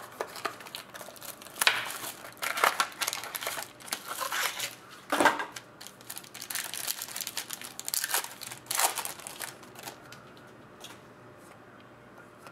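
Crinkling and rustling of trading cards and their plastic packaging being handled, with several short scraping sweeps; it quiets down near the end.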